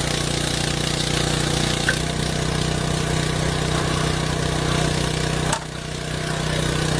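A motor running steadily with a constant hum, dipping briefly in level about five and a half seconds in.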